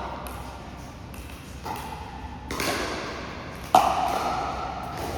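Pickleball rally: sharp hollow pocks of the plastic ball struck by paddles, three hits about a second apart with the loudest near the middle.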